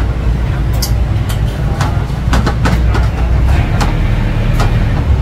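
Steady low rumble of street traffic, with a series of sharp clinks and knocks as melamine bowls and utensils are handled on a steel counter.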